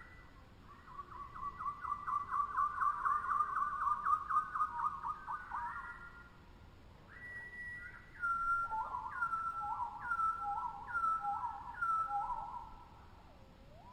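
Tropical bird song: a rapid trill of repeated whistled notes for about four seconds, then after a short pause a two-note phrase, a higher note dropping into a lower one, repeated five times about once a second.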